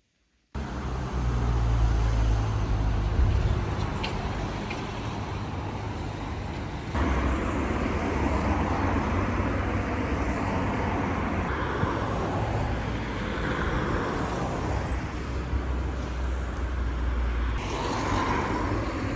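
Steady low rumble of a road vehicle in motion, starting abruptly and shifting in character suddenly about seven seconds in and again near the end.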